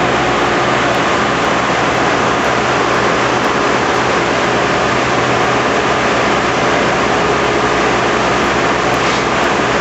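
Heavy engine-driven machinery running steadily: a loud, unchanging noise with a low hum under it.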